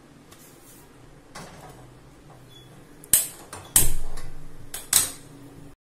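Stainless-steel idli steamer handled on the stove: three sharp metal clanks about a second apart in the second half, each ringing briefly, over a low steady hum. The sound cuts off abruptly near the end.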